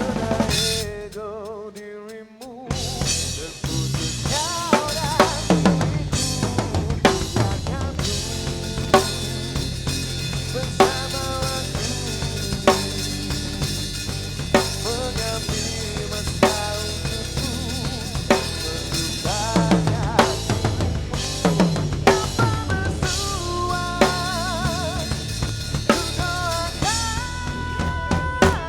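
A rock band plays an instrumental break live: a drum kit with bass drum, snare and cymbals under a lead melody that bends and wavers. The band drops to a few quieter held notes for the first couple of seconds, then the full kit comes back in.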